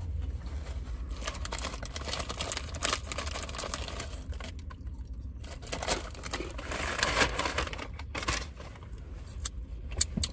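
Food wrapper being crumpled and crinkled in irregular crackling bursts, as packaging is balled up after the meal.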